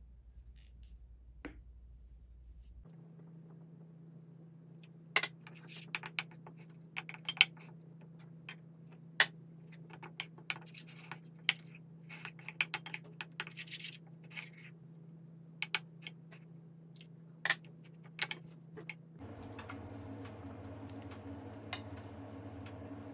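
A kitchen utensil clinking and knocking against a ceramic mixing bowl as cake batter is mixed: irregular sharp taps, over a steady low hum.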